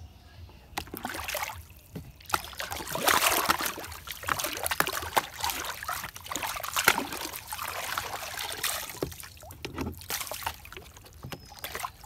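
Pond water sloshing and splashing in a plastic tub as it is dipped, swished about and rinsed clean by hand, in irregular bursts that start about a second in and ease near the end.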